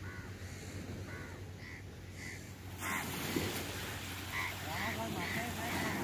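Crows cawing: short harsh calls repeated, a few spaced ones at first and a quicker run near the end, over steady wind and surf that grows louder about three seconds in.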